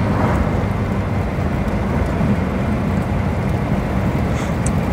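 Inside the cabin of a 1949 Armstrong Siddeley Lancaster 16 hp on the move: its six-cylinder engine running steadily with tyre and road noise. The engine is still misfiring, not yet firing on all cylinders.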